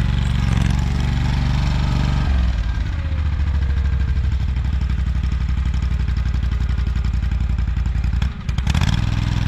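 AGCO Allis garden tractor engine running steadily while the tractor tows a fertilizer spreader, its note dropping about two seconds in as it turns, with a brief dip in the sound near the end.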